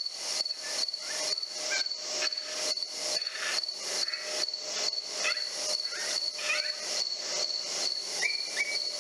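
A summer night chorus of crickets and other insects: a steady high trill under a pulsing hiss, about three pulses a second, with a few short chirps mixed in.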